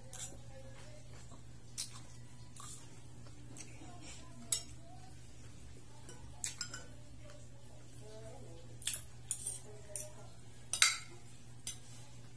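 Metal spoon and fork clinking and scraping against a plate in scattered sharp clicks, more frequent in the second half, with the loudest near the end, over a steady low hum.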